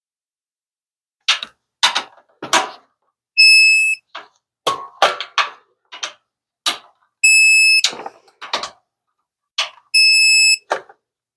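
A ratchet wrench tightening the winch mounting bolts in quick rasping strokes. A steady high beep about half a second long sounds three times, once for each of the three bolts: an electronic torque wrench signalling that 20 foot-pounds has been reached.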